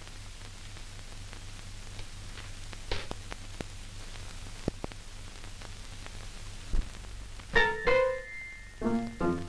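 Grand piano: a few single notes struck about seven and a half seconds in, one high note held ringing, then a couple of lower notes near the end, opening a song. Before that, only the steady hum and hiss of an old film soundtrack with a few faint clicks.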